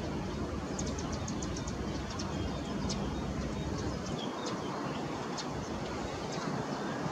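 Airbus A330-300 airliner's jet engines, a steady broad rush as it rolls out along the runway just after touchdown, with a few short high chirps over it.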